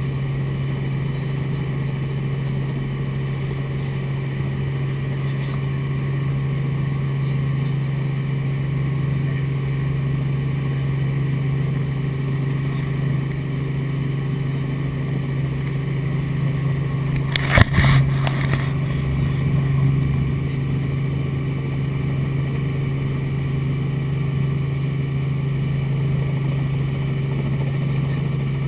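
Robinson R44 Raven II helicopter running, its six-cylinder Lycoming engine and main rotor making a steady drone heard from inside the cabin. A brief crackling click cuts in about two-thirds of the way through.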